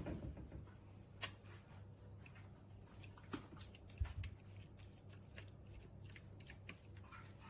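Thick lasagna sauce being spooned and spread over the bottom of a baking dish: soft wet squishing with scattered light clicks. There is a sharp knock right at the start and a dull thump about four seconds in.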